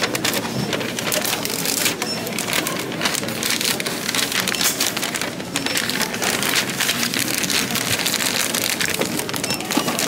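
Paper or plastic packaging crinkling and rustling as it is handled close to the microphone, a dense continuous crackle.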